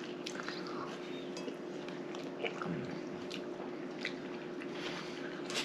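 Eating at a table: biting and chewing a wrap, with scattered light clinks of cutlery and dishes over a steady low hum.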